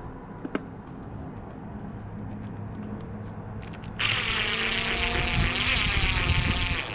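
A power drill runs in one burst of about three seconds, starting abruptly partway in, with its motor pitch shifting as it drives, while the motorhome panels are screwed back together. A low steady hum sits underneath.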